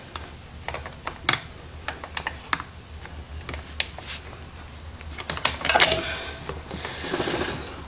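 Irregular light metallic clicks and clinks of a hand wrench working on a dirt bike's rear sprocket bolts, with a quicker cluster of clinks about five seconds in.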